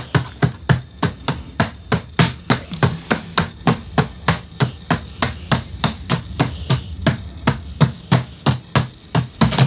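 Hands tapping rapidly on a tabletop and a small glass bowl of wet concrete mix, a steady run of sharp knocks at about three or four a second, done to shake the air bubbles out of the mix.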